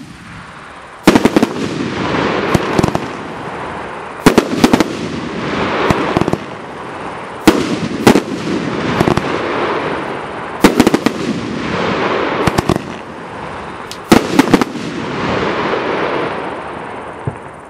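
A 500-gram 25-shot peony finale cake firing its shells: sharp bangs from the launches and bursts come in pairs and triples every second or two, and each group trails off in a fading rush. A last, smaller bang comes near the end.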